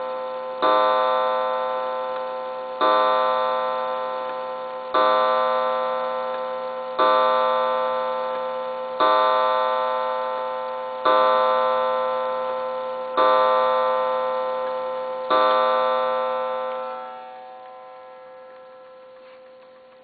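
Mantel clock's striking movement, its hammer striking a coiled wire gong eight times, about two seconds apart, each stroke ringing on and fading until the next. The ringing dies away after the last stroke.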